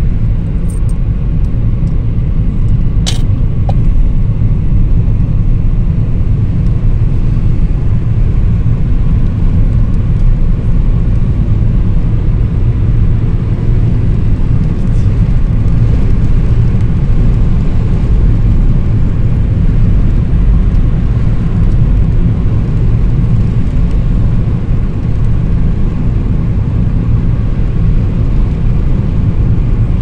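Steady low rumble of a car driving at road speed, heard from inside the cabin: engine and tyre noise on asphalt. A single sharp click comes about three seconds in.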